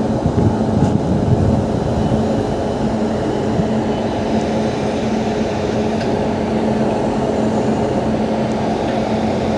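WAP7 electric locomotive standing and humming steadily, its constant drone holding a few fixed tones over a low rumble, with a couple of faint clicks.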